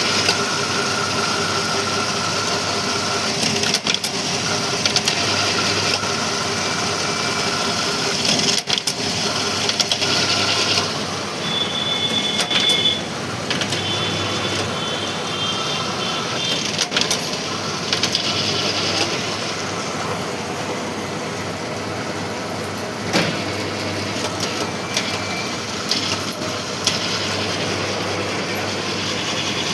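Semi-automatic strapping machine running: a steady mechanical hum with whining tones that come and go, and a few sharp clicks.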